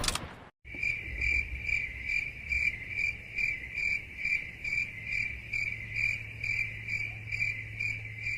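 Crickets chirping in an even rhythm, about two and a half chirps a second over a faint steady hum: the stock 'crickets' meme sound effect for an awkward silence. It starts just after the tail of a loud sound that cuts off about half a second in.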